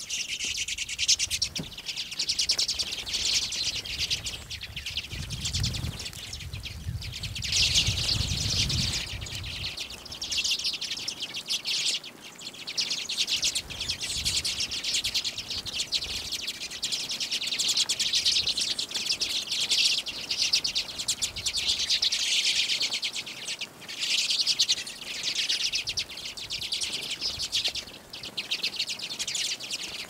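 A flock of redpolls twittering and chattering at close range, a dense run of rapid high calls that swells and eases with short lulls. A low rumble sits under the calls for roughly the first nine seconds.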